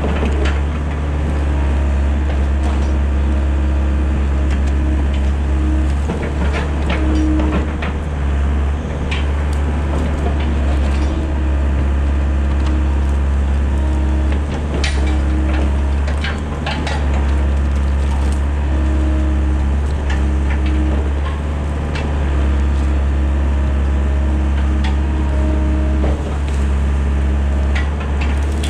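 Mini excavator's diesel engine running steadily under load, with a hydraulic whine that comes and goes as the boom and bucket work. Scattered cracks and snaps of brush and roots break as the bucket tears out saplings.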